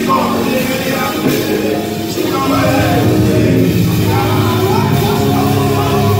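Live gospel worship song: a woman singing lead into a microphone with backing singers over amplified band accompaniment. The accompaniment fills out and grows a little louder about two seconds in.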